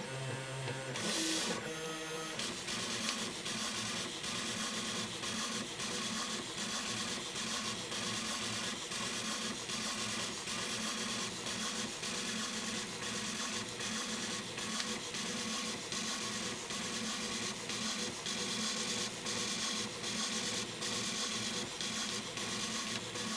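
Stepper motors and belt-driven axes of a Prusa Mendel RepRap running as a pen plotter at 150 mm/s, giving a steady, busy mechanical whine that flickers quickly as the axes keep reversing. A short, louder buzz comes in the first two seconds before the steady drawing sound settles in.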